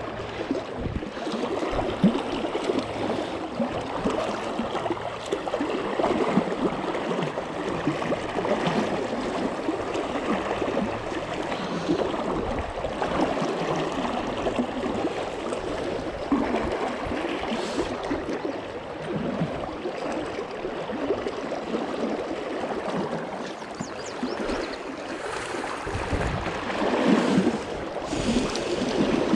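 Shallow river current rushing steadily close to the microphone, growing a little louder near the end.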